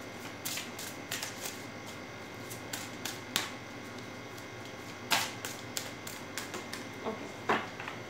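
Deck of oracle cards being shuffled by hand: a run of soft, irregular card clicks and taps, with louder card slaps about three, five and seven and a half seconds in.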